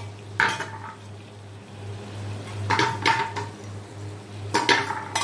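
Metal utensil clinking and scraping against a kadai as partly cooked chicken is stirred, in three short bursts of clatter.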